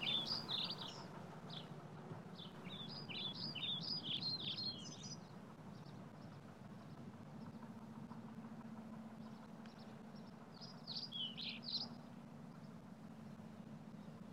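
Small songbird chirping in quick runs of high, fast notes, once at the start, again around three to five seconds in, and again near eleven seconds in, over a faint steady low hum of outdoor background.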